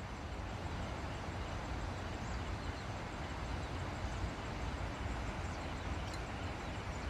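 Steady outdoor background noise: a low, even rumble with no speech, and a few faint high chirps scattered through it.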